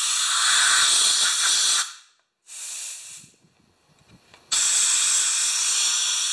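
Compressed air from a shop air blow gun hissing as it is blown backwards through a plugged pressure washer line to clear the blockage. It comes in three blasts: a long one of about two seconds, a brief weaker one, then a steady blast from about four and a half seconds in.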